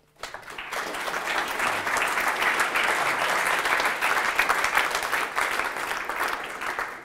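A roomful of people applauding: dense clapping that swells over the first second, holds steady, and begins to thin out near the end.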